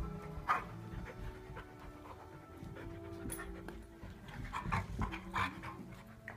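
An adult dog and a puppy play-fighting, panting, with a few short scuffling and snapping noises about half a second in and again near the end.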